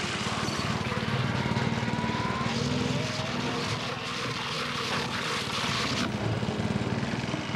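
Petrol lawnmower engine running steadily with a rapid low pulsing. A spraying hiss lies over it from about two and a half to six seconds in.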